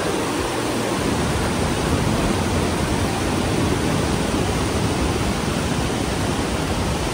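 Fast-flowing mountain river rushing, a steady loud wash of water.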